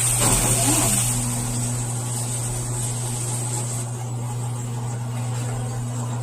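TCL TWF75-P60 front-load inverter washing machine running at the start of a wash: a steady low hum with an even hiss over it, the hiss easing a little after the first few seconds.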